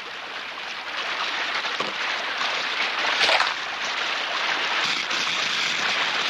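Steady rushing water noise, growing a little louder, with a brief louder splash about three seconds in.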